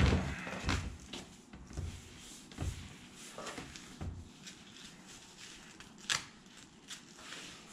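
Scattered soft knocks, clicks and rustles of things being handled, with a sharper click about six seconds in.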